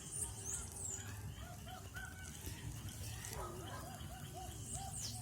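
Birds calling: two runs of short repeated arching notes, one about a second and a half in and another after three and a half seconds, with high, quick downward-sweeping chirps near the start and the end, over a low steady rumble.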